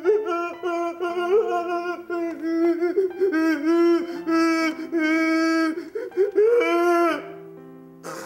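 A voice singing a slow line of long, held notes over soft sustained background music; the singing stops about seven seconds in, leaving the music alone.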